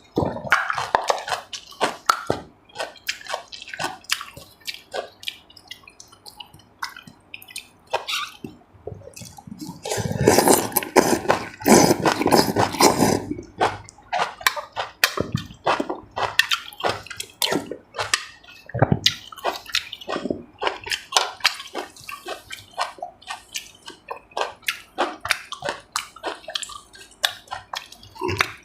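Close-miked mukbang eating sounds: chewing and mouth smacks as many short, irregular clicks, with a denser, louder stretch of noise about ten seconds in that lasts about three seconds.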